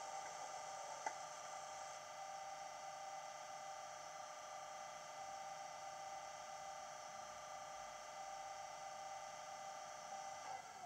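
Model Class 37 locomotive's sound decoder playing a diesel idling, a steady whining hum through the small speaker under the fan, with one faint click about a second in.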